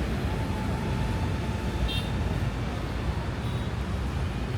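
Traffic ambience: a steady low rumble of passing vehicles, with a short, high horn beep about two seconds in.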